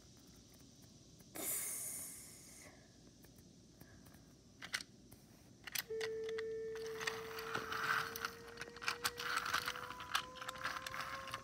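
Toy subway train's small electric motor whirring with a steady whine that starts about six seconds in and creeps slightly higher in pitch. Clicks, rattles and a brief scrape come from the plastic cars being handled on the track.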